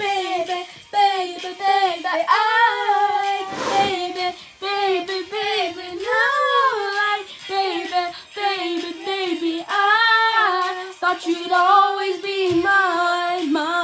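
A high voice singing a tune without accompaniment, with long held notes and short pauses between phrases.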